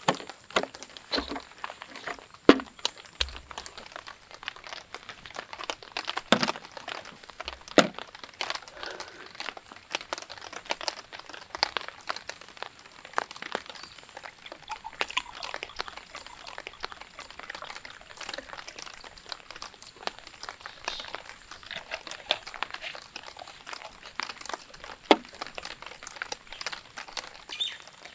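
Close-up handling noises: irregular light clicks, ticks and crinkling, with a few sharper knocks in the first eight seconds and one more near the end, such as a folding aluminium camp table being opened out and set up.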